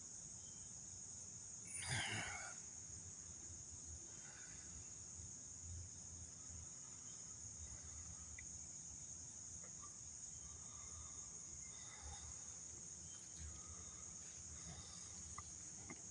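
Faint, steady high-pitched chorus of insects in the woods, with one brief louder sound about two seconds in.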